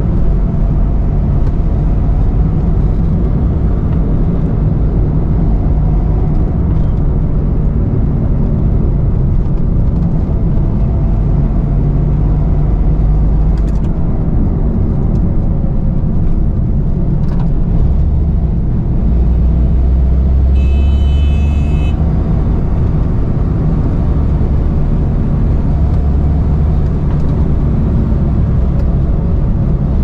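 Suzuki Mehran small car driving, heard from inside the cabin: a steady low engine drone and road noise. A brief high-pitched beep sounds about two-thirds of the way through.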